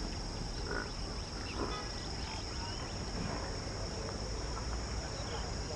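Insects, crickets or similar, trilling steadily in one high band over a continuous low rumble.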